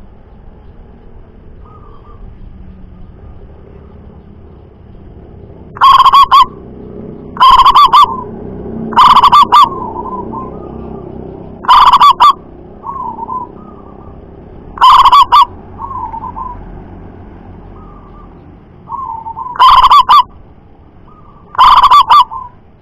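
Zebra dove (perkutut) singing: a series of about seven very loud, clipped cooing calls a second and a half to three seconds apart, starting about six seconds in, with soft short trilling notes between them.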